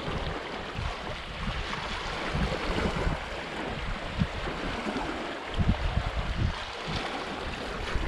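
Small waves lapping on a stony lake shore, with wind buffeting the microphone in irregular gusts.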